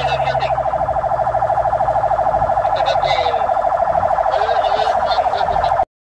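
Fire engine's siren sounding in a fast warble held at one pitch, heard from inside the cab over the engine running. It cuts off abruptly near the end.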